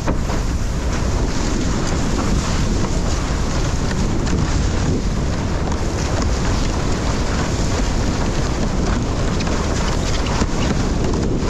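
Steady wind noise on the microphone over the rush and splash of water under a windsurf board sailing on a wave.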